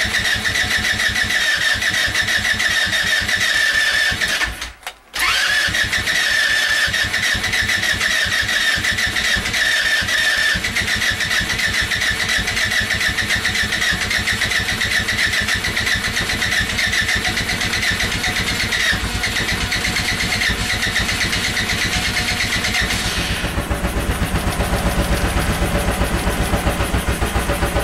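Electric starter cranking a go-kart engine on a cold, hard start, with a high whine over a fast rhythm. The starter stops briefly about five seconds in, then cranks again for a long stretch. Near the end the whine stops and the engine fires and runs with a lower, pulsing beat.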